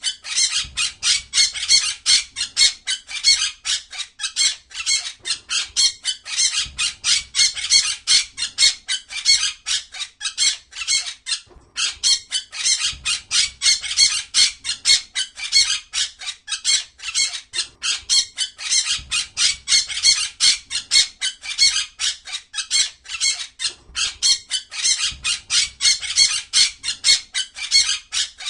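A flock of small cage birds chirping rapidly and without let-up, many high chirps overlapping, with a brief pause about eleven seconds in.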